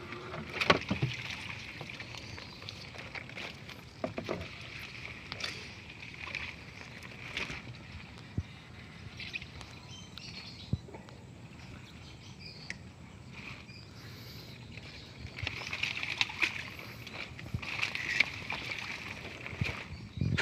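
Water hyacinth being pulled from the water and piled into a small boat: rustling and crackling leaves and stems, dripping and sloshing water, and irregular knocks. The handling gets busier about two-thirds of the way in and again near the end.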